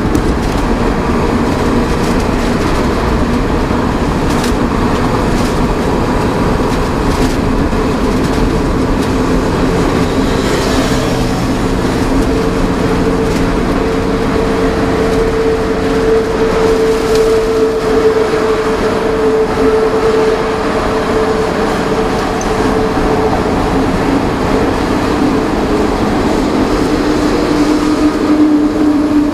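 Engine and road noise inside the cab of a new VW Worker 15-180 4x4 truck cruising on a highway: a steady rumble with a humming drone that settles to a lower pitch near the end.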